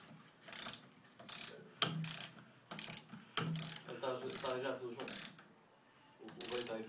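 Ratchet wrench clicking in repeated short strokes as it snugs the top nut onto a shock absorber's shaft, some eight strokes spaced half a second to a second apart, with a little pitched metallic ringing between some of them.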